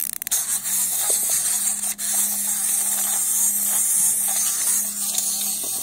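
Small plastic wind-up toy: a few quick clicks as it is wound, then its clockwork spring motor buzzing steadily for about five seconds as it runs down, stopping just before the end.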